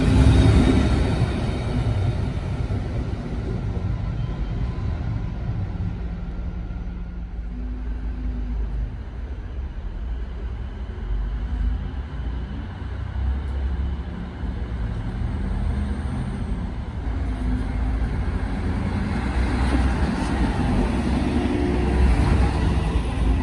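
A train running past close by, its low rumble fading over the first few seconds. Then a DSB IC3 diesel multiple unit approaches and passes, the rumble building again toward the end.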